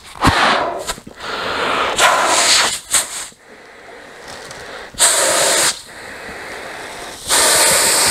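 A man blows hard into the sleeve of an Epsealon Fusion wetsuit jacket made of Yamamoto neoprene, lined outside and open-cell inside, to inflate it. The sound is several long, forceful rushes of breath with quieter breathing between them. He is testing how far the neoprene stretches and whether it holds air.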